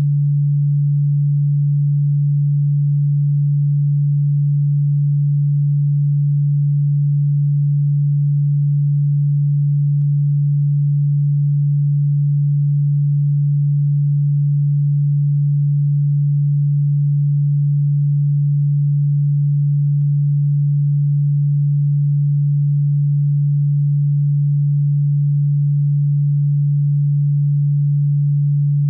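A single steady, low, hum-like pure tone played continuously as a pest-repellent sound for cockroaches, unchanging in pitch and loudness.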